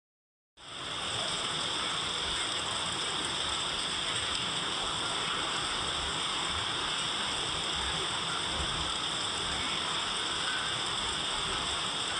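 Steady rain, a continuous even hiss that fades in quickly about half a second in.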